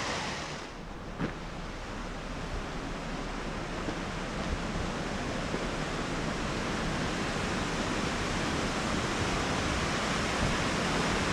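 Wind blowing across the microphone: a steady rushing noise with an unsteady low rumble. It dips briefly about a second in, then grows slowly louder, with one small knock early on.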